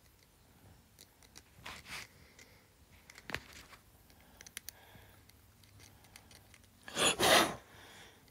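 A steel pin scraping and picking in the small openings of an iPhone 7, in faint scratches and ticks, with a louder rubbing rustle about seven seconds in.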